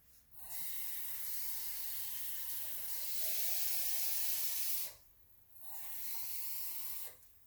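Water pouring into a cooking pot in two pours: a long one of about four and a half seconds that grows louder partway through, then a short one of about a second and a half.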